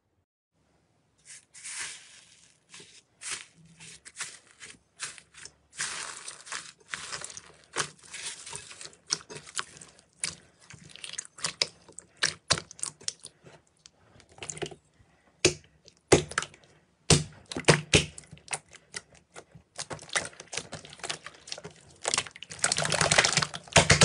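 Slime being pressed and poked by hand, giving quick crackling pops and clicks as air pockets burst, with a longer, louder run of crackling near the end.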